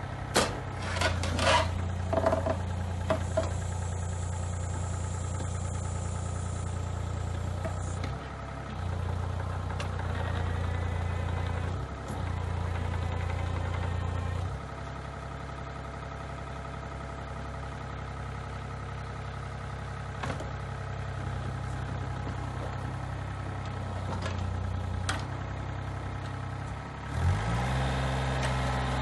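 Yanmar ViO30 mini excavator's three-cylinder 3TNE82A diesel running steadily, its note stepping up and down as the hydraulics take load while the boom and bucket move. A few sharp metallic knocks come in the first few seconds, and the engine note rises near the end.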